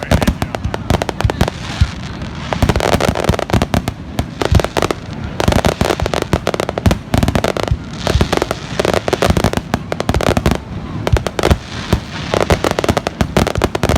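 Rapid, continuous crackling and popping: dense irregular sharp cracks and bangs, many each second, with no pause.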